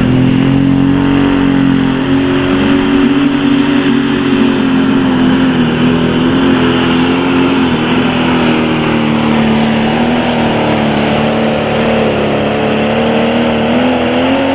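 A John Deere super farm class pulling tractor's turbocharged diesel engine running flat out at high, steady revs under full load during a pull. Its pitch sags slightly in the middle and climbs again near the end, and the sound drops away sharply at the very end.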